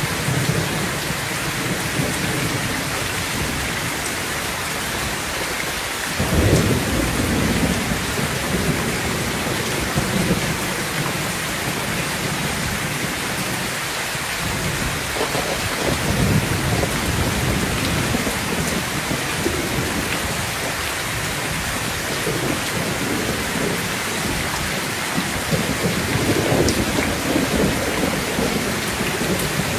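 Heavy rain pouring steadily on a metal roof, with low rolls of thunder: a loud one breaks in suddenly about six seconds in, and further rumbles come about halfway through and near the end.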